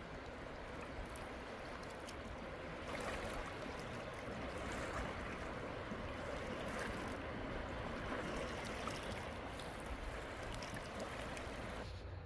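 A wide, clear river flowing past: a steady rush of moving water, breaking off just before the end.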